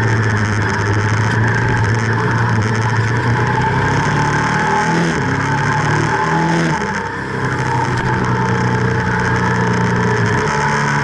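Ducati SS900's air-cooled L-twin engine running at road speed under a steady rush of wind over the microphone. The note holds steady for the first few seconds, shifts in pitch with the throttle around the middle, and briefly drops in level about seven seconds in.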